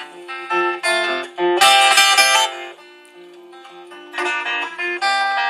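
Acoustic guitar played as an instrumental break between sung verses: picked melody notes over a held low note that keeps ringing, with a louder flurry about two seconds in and a quieter stretch after it.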